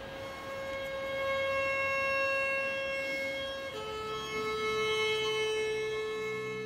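Solo violin, bowed, holding one long sustained note that steps down to a slightly lower long note about four seconds in.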